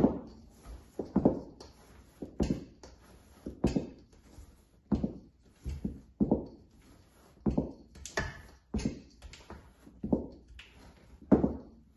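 Wooden spoon knocking and scraping against a stainless steel mixing bowl as thick cake batter is cut and folded by hand, in irregular strokes about once a second.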